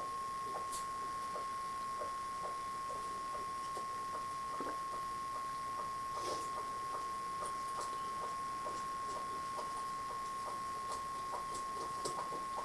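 A dog lapping water from a bowl: a run of small, soft, fairly even wet clicks, about two or three a second. A steady thin high tone runs under it.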